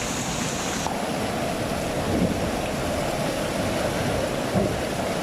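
Floodwater rushing through a flooded wadi channel, a loud steady roar of moving water with wind buffeting the microphone. The sound changes abruptly about a second in.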